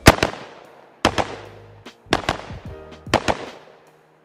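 Rifle firing four quick pairs of shots, one pair about every second: double taps switching between targets on alternate sides in a wide transition drill.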